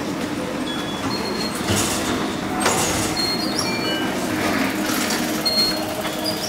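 Opal card readers on the station ticket gates beeping as passengers tap through: several short, high single beeps at different pitches, with brief whooshes of the gate paddles opening, over the steady hum of a busy station concourse.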